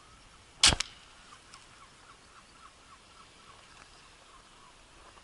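A single shot from a Hatsan 125 break-barrel spring-piston air rifle: one sharp, loud crack about two-thirds of a second in, followed closely by a second, fainter crack.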